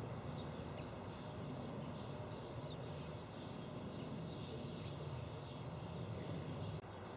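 Faint, scattered high chirps of small birds over a steady low outdoor rumble, which drops away just before the end.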